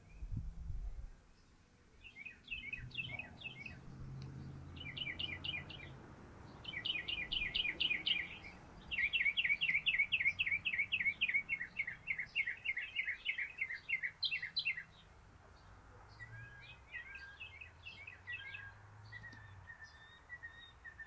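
Northern mockingbird singing: phrases of quick notes, each repeated several times in a row, loudest and most rapid in the middle, then softer scattered notes near the end.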